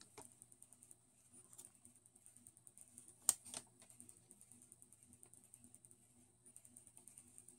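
Faint handling noise of a long paper receipt being held and moved in the hands: light, irregular paper ticks and rustles, with one sharper click a little past three seconds in.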